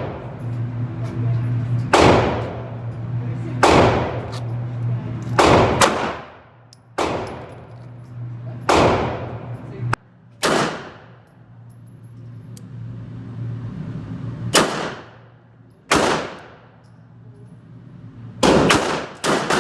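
CZ P-10 C pistol fired in single shots at uneven intervals, each shot trailing an echoing ring, with a quick string of shots near the end.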